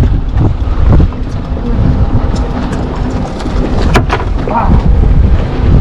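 Wind buffeting the microphone in uneven low gusts, with scattered clicks and one sharper click about four seconds in.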